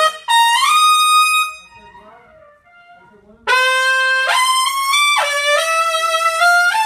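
A trumpet played solo: a high note attacked and held for about a second and a half, a short pause, then a phrase of several notes moving up and down from about three and a half seconds in.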